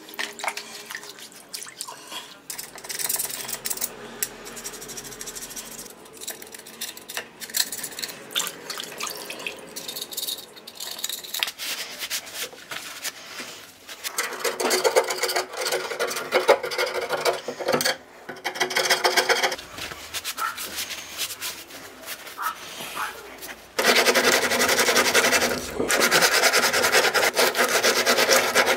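Metal being scraped and ground with an abrasive tool, in spells of a few seconds, turning louder and steady about five seconds before the end. This is sharpening or cleaning work on a lawn mower blade.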